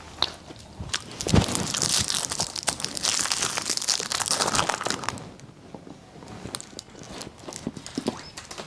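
Candy wrapper crinkling as a sweet is unwrapped by hand, dense and loudest from about a second and a half to five seconds in, then softer scattered rustles. A dull thump comes just before the crinkling starts.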